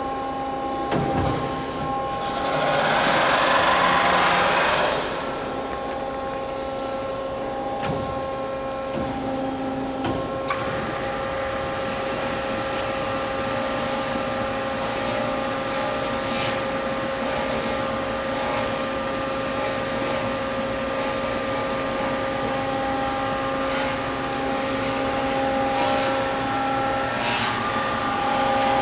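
Behringer HPB-513A dual column automatic horizontal band saw running its programmed cutting cycle: a steady machine hum with a rush of noise a few seconds in, then a steady high-pitched whine that joins about ten seconds in and holds.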